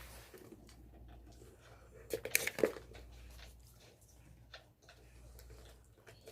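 Faint rustling and clicking handling noises over a low steady hum, with a louder cluster of clicks about two seconds in.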